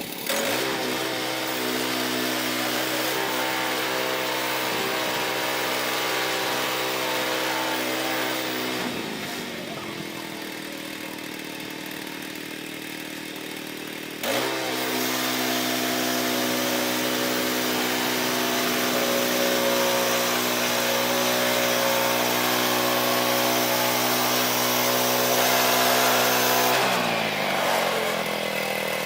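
Woodland Mills band sawmill's gas engine running at high throttle. It drops in pitch and level to a slower run about a third of the way in, revs back up sharply about halfway, and falls off again near the end.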